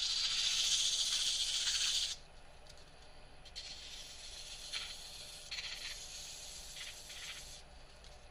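Hand-held sandpaper pressed against a figured maple blank spinning on a wood lathe: a steady hiss, loud for the first two seconds, then softer in several short swells as the pressure eases and returns.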